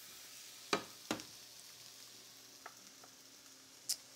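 Mushrooms sizzling steadily in a sauté pan on an electric cooktop. Two sharp knocks about a second in as the pan is set down on the glass cooktop, and a light metal clink near the end.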